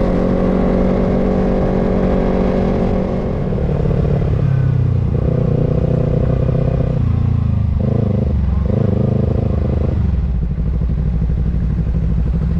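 Kawasaki Ninja sport bike's parallel-twin engine running. Its pitch holds steady at first, then shifts up and down several times.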